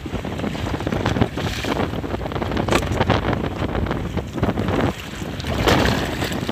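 Wind buffeting the microphone over the sound of open sea around a small boat, a steady rush and rumble that grows louder for a moment near the end.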